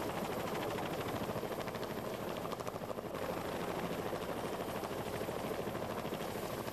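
Military helicopter running close by, its rotor making a steady, rapid, even beat over the engine noise.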